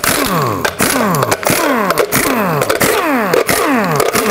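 Air impact wrench with a 22 mm socket spinning off the lug-nut cover caps on a van wheel. It runs with a rattling hammer, and its pitch falls over and over about twice a second.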